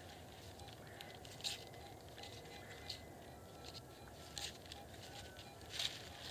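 Faint crackles and scuffs of loose soil and dry leaves, with a few soft taps. Faint thin metal-detector tones sound through the middle as the coil is passed back over the dug hole to find a strong signal the pinpointer has missed.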